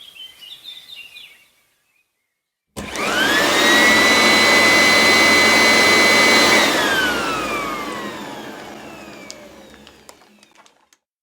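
An electric appliance motor, likely a vacuum cleaner, switches on with a rising whine. It runs loud and steady for about four seconds, then is switched off and winds down, its whine falling slowly over several seconds.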